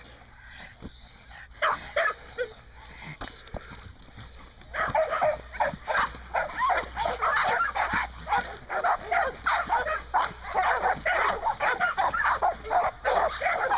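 Dog barking and yipping: a few scattered barks, then from about five seconds in a rapid run of short, high calls, about three a second.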